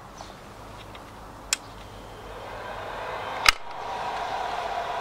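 Steady mechanical hum from a homemade lawnmower generator rig, with two sharp clicks about two seconds apart; after the second click the hum becomes louder and steadier.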